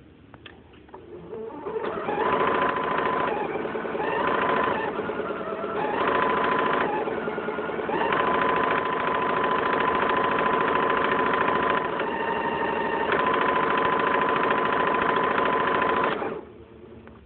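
Janome DC2010 sewing machine running and stitching with a steady motor whine. It starts about two seconds in, slows and picks up again a few times, then runs steadily and stops near the end.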